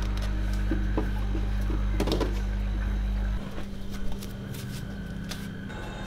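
Refrigerator humming low with its door open, with a few light knocks and rustles as food is moved on the shelves. The hum cuts off suddenly about three and a half seconds in, and a single light knock follows.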